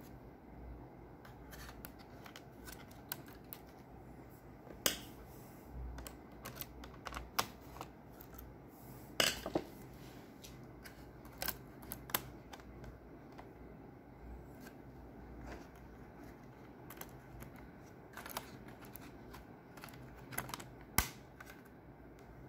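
Scattered small clicks and taps of screws and a screwdriver being handled on a laptop's CPU heatsink and chassis, with the sharpest about five, nine and twenty-one seconds in.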